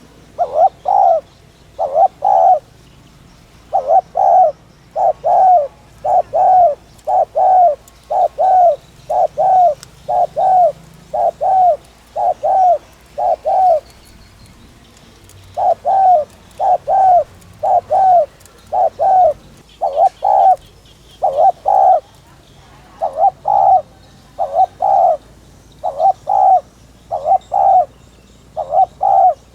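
Spotted dove cooing in fast runs of short, repeated coos: the urgent 'thúc' call that bird-keepers play to stir up decoy doves. There is a short pause about halfway through.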